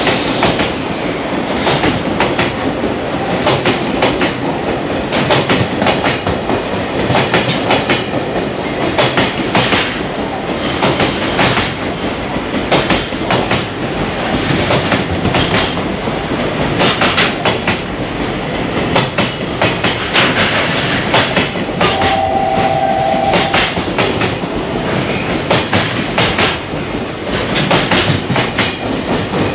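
Long container freight train passing at speed, its wagon wheels clattering over the rail joints in repeated knocks under a steady rumble. A short squeal sounds about three quarters of the way through.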